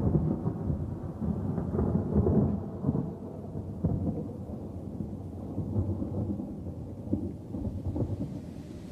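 Rumbling thunder with rain, a storm sound effect. It starts suddenly, is loudest in the first few seconds, then eases.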